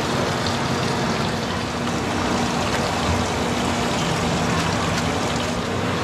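Large pot of water at a rolling boil on a stall stove, a steady rushing, bubbling noise, over a steady low hum.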